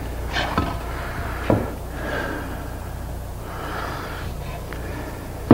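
Pine boards being handled and shifted on a wooden workbench: a few light knocks in the first second and a half, then soft rubbing, over a steady low hum.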